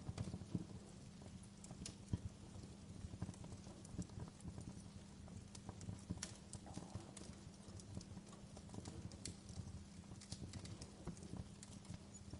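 Fireplace fire crackling, with irregular sharp pops and snaps over a steady low rumble.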